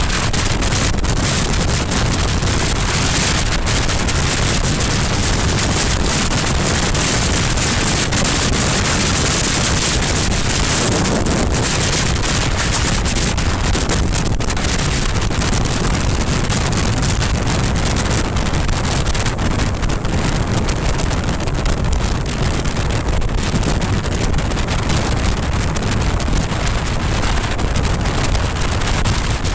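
Steady, loud wind noise buffeting the microphone of a camera on a BMW R1200GS Adventure motorcycle cruising at dual-carriageway speed, with no clear engine note standing out above it.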